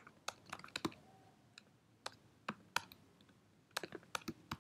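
Faint clicking of computer keyboard keys being typed, in short irregular runs with pauses between.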